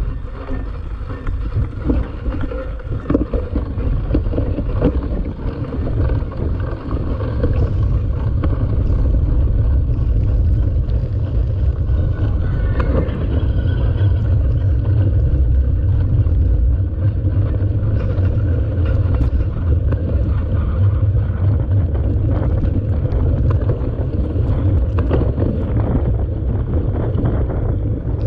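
Wind buffeting the microphone of a camera mounted on a mountain bike while it is ridden, a strong steady low rumble, with frequent small knocks and rattles from the bike.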